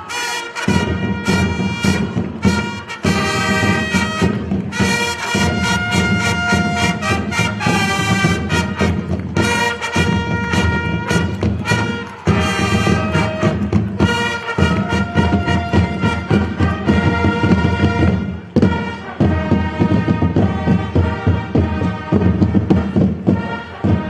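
Marching fanfare corps playing a march on fanfare trumpets, with drums beating a steady rhythm under the held brass notes.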